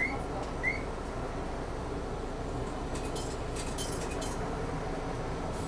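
Randen (Keifuku Electric Railroad) tram running along the line: a steady rumble with two short, rising high squeaks near the start and a quick cluster of clicks about three to four seconds in.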